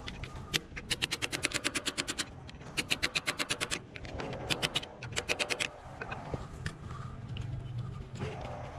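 Hammer rapidly tapping a steel punch against a forklift's axle hub locking nut to drive it loose, about ten sharp metal-on-metal taps a second in three runs.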